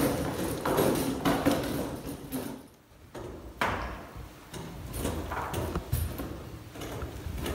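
Footsteps on a hard church floor, with a few separate knocks as people walk along the pews.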